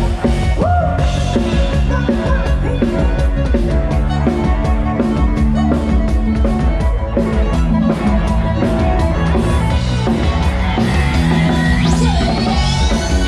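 Loud live lam sing band music: drum kit keeping a fast driving beat under electric guitar and keyboard, with a swooping pitch slide near the end.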